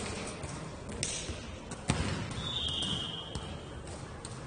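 A ball bouncing and being struck on an indoor court in a hall, with a few sharp knocks, the loudest about two seconds in. A steady high-pitched tone sounds for about a second near the middle.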